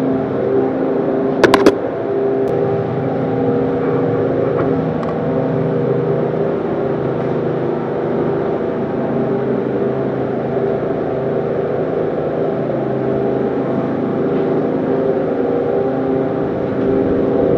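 Walk-in freezer's ceiling evaporator fan unit running with a steady hum and whoosh. A few sharp clicks come about a second and a half in, and a single click a second after that.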